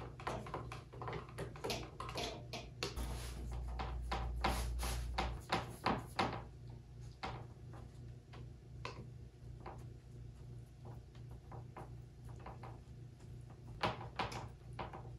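Brush dabbing resin onto fiberglass matting: a run of soft, irregular taps, thick over the first six seconds, sparse after, bunching again near the end.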